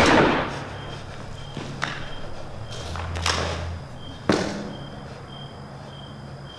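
A few sharp knocks or thuds that trail off, the loudest about four seconds in, over a faint high chirp repeating about every two-thirds of a second and a low steady hum.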